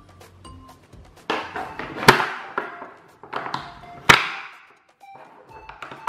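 Toy pizza slices being cut apart with a plastic knife: the hook-and-loop fastening between the pieces tears with a short rasp that ends in a sharp snap, twice. Light music plays underneath.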